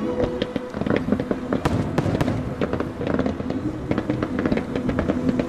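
Display fireworks going off in a quick series of sharp bangs and crackles, with the loudest reports clustered about two seconds in. Steady background music runs underneath.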